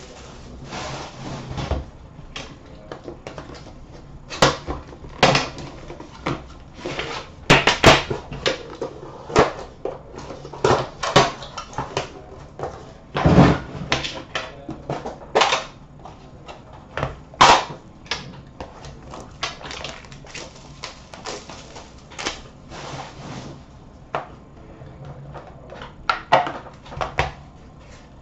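Hands opening a boxed hockey card product: cardboard sliding and a lidded inner case being handled, a string of irregular knocks, taps and scrapes.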